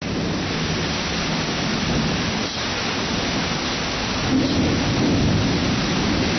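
Heavy rain hissing steadily in a thunderstorm, with a low rumble of thunder swelling about four seconds in.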